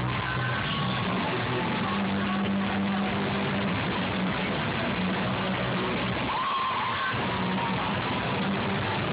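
Indie rock band playing live at full volume: electric guitars, bass, drums and keyboards, with a sung voice rising above the mix about six and a half seconds in. The recording is overloaded and heavily distorted, so the music comes through as a dense, harsh wash with a held bass note underneath.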